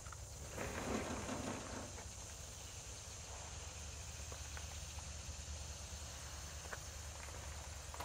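Quiet outdoor background with a steady high insect drone. About a second in there is a short scraping rustle, and a few faint ticks follow. No sawmill engine is running.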